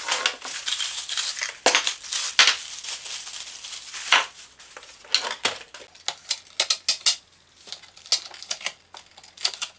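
Packaging and parts of a boxed espresso machine being handled. In the first half there is rustling and scraping; from about halfway on comes a quick run of light clicks and clinks of hard parts.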